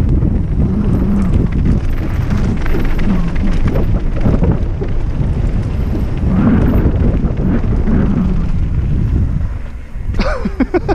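Wind buffeting the microphone and the rumble of a mountain bike rolling fast down a dirt trail, steady and loud; near the end, after a brief lull, a short wavering squeal.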